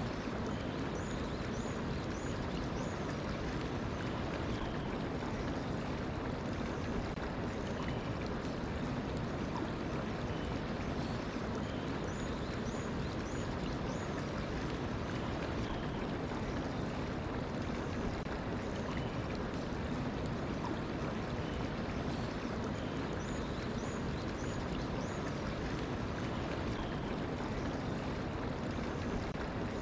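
Mountain stream running steadily over rocks, with a bird's short, high chirps in three brief runs.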